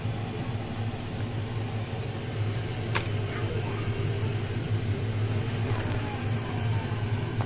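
A steady low mechanical hum, with one sharp click about three seconds in.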